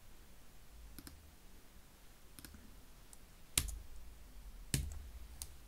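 Computer mouse clicking: about six separate, sharp clicks spaced unevenly, with the two loudest a little past halfway.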